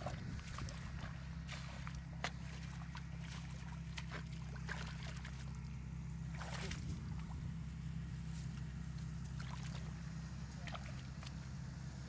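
Hands sloshing and splashing in a shallow muddy puddle, with scattered small splashes and drips and a larger slosh about six and a half seconds in, over a steady low drone.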